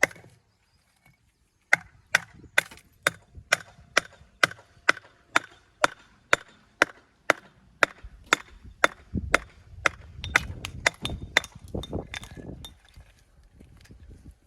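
Hammer repeatedly striking stone to dress and shape it for a dry stone wall, sharp blows with a slight ring about two a second, quickening towards the end before stopping. A low rumble sits under the later blows.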